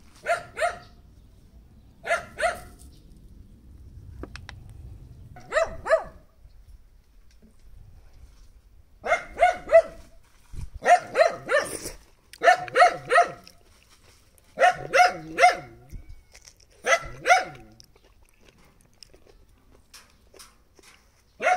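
A dog barking repeatedly, in short runs of two to four barks every second or two.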